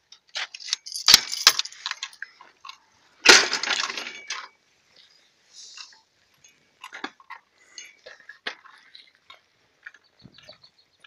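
Irregular rattling and knocking from a bicycle and the camera jostling on it while riding, with two louder spells of clattering in the first half and lighter scattered clicks after.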